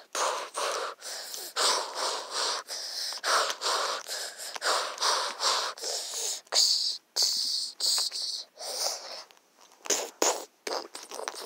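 A young person's voice making breathy fighting noises for toy animals, in quick short bursts about two or three a second.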